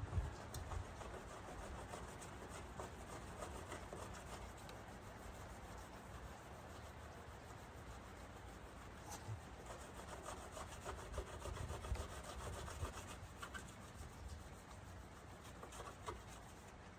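A clay bar being rubbed back and forth by hand over a car's painted body panel: a steady scrubbing that grows a little louder about two-thirds of the way through.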